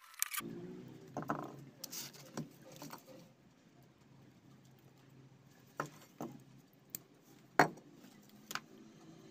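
Handling noise from fitting a replacement field coil for an electric wood cutter: scattered small clicks and taps of the coil, its lead wires and the tool parts being handled, the sharpest tap about three-quarters of the way through, over a faint steady hum.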